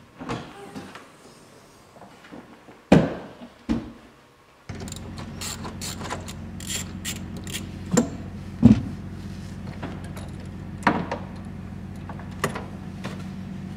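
Car trunk lid opening with a couple of knocks, then a ratchet wrench clicking in quick runs and metal knocks as the battery terminal is loosened to disconnect the battery. A steady low hum sets in about a third of the way through.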